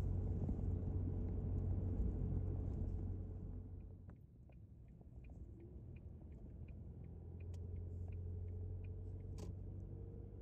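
Car driving on a sealed road, heard from inside: a steady low road-and-engine rumble that dips about four seconds in and then builds again. A light, evenly spaced ticking runs for a few seconds in the middle.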